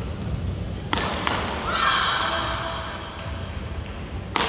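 Badminton rally: sharp racket smacks on the shuttlecock about a second in and again near the end, with a drawn-out squeak of court shoes on the floor in between, over a low background murmur.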